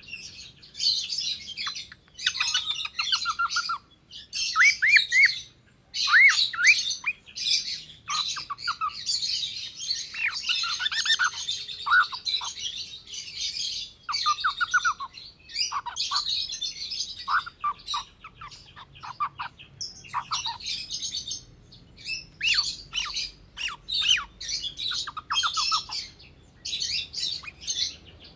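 Gray cockatiel chirping and squawking: quick runs of short chirps and harsher calls in bursts of a second or two, broken by brief pauses.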